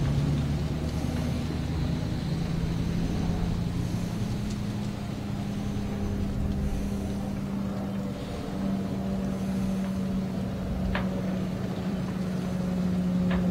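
Outboard boat engine idling steadily, its pitch stepping up a little about four seconds in. Two light clicks near the end.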